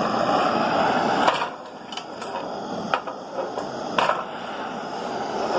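Butane hand torch flame hissing steadily, the hiss dropping sharply about a second in; several sharp taps follow, spaced about a second apart.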